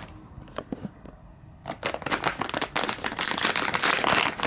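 Black plastic packaging crinkling as hands unwrap it: a few scattered crackles at first, then continuous, louder crinkling from a couple of seconds in.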